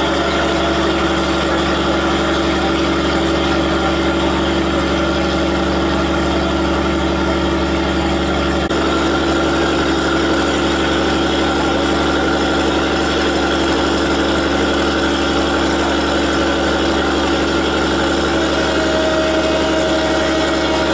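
Train's diesel engine idling steadily, a constant low drone that holds the same pitch throughout.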